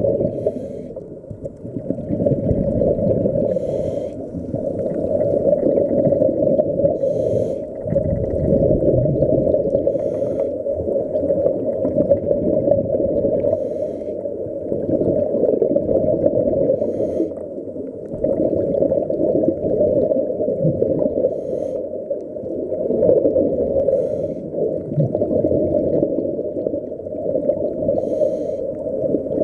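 Muffled underwater noise picked up by a camera held under water: a dull, shifting rumble and gurgle, with a short hiss every three or four seconds.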